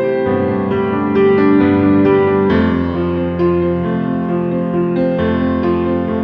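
Background piano music, a gentle melody of notes changing about every half second.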